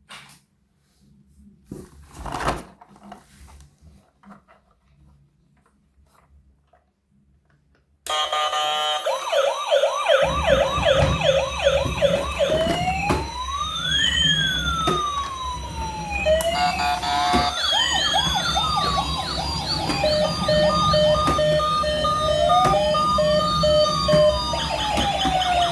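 A few soft knocks, then about eight seconds in, several electronic emergency-vehicle sirens start at once and sound together. Slow rising-and-falling wails cross one another over fast yelps and stepped two-tone beeps, and a low rumble joins a couple of seconds later.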